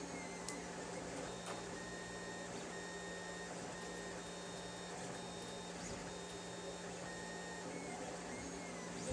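Lulzbot TAZ 5 3D printer printing, its stepper motors whining in a run of short, even-pitched tones about half a second each as the print head moves, over a steady low hum. Near the end the whine wavers in pitch.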